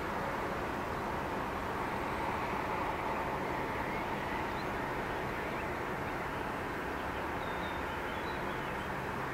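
Steady drone of a loaded inland container ship's diesel engine passing on the river, with a faint steady hum over it. A few faint bird chirps come in about four seconds in and again near the end.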